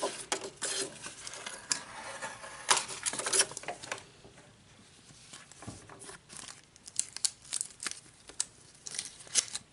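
Paper and tape rustling and tearing as a taped-in paper quick reference guide is pulled free and handled. There is a thick run of crinkles and short rips over the first few seconds, then quieter, scattered crackles.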